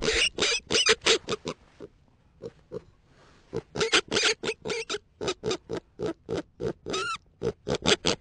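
Rapid animal grunts in short bursts, several a second, broken by a quiet pause of about a second and a half near the middle, with a brief wavering squeal near the end.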